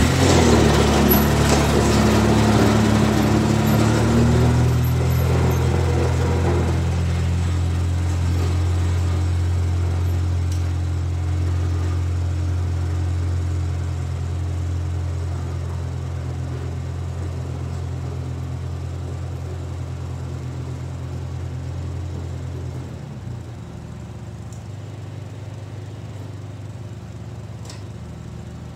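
2004 Polaris Sportsman 600 ATV's twin-cylinder engine running at a steady speed as the quad pulls away, loud at first and fading steadily as it drives off. The engine note changes near the end.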